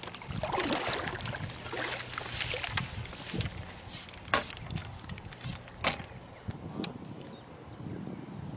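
A hooked carp splashing and thrashing at the surface as it is drawn over the landing net, followed by a few sharp clicks and knocks of tackle being handled.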